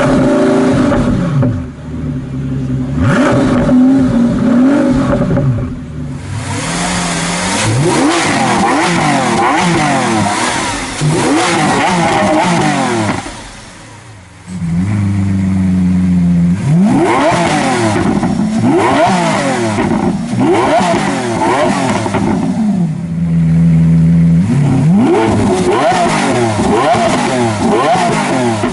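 Supercar engines accelerating hard, several times in succession. Each pull climbs in pitch and drops back through quick gear changes. The sound dips briefly about halfway through, and then another hard acceleration follows.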